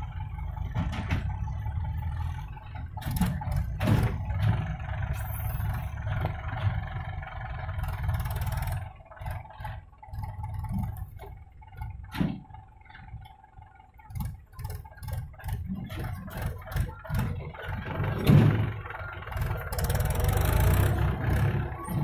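JCB 3DX backhoe loader's diesel engine running and revving up and down under load as the backhoe digs soil, with frequent knocks and clatter from the bucket, arm and stones. It grows loudest near the end.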